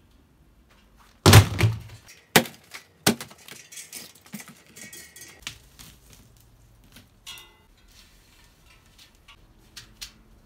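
Metal clanks and clinks as a bicycle wheel and rim are handled: a few loud knocks over the first few seconds, then lighter clicks and rattles, with a brief metallic ringing rattle past the middle.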